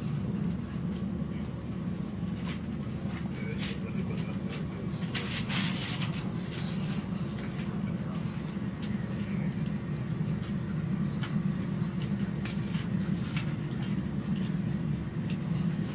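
Regional train running, heard from inside the passenger carriage: a steady low rumble with scattered clicks and knocks, and a brief hiss about five seconds in.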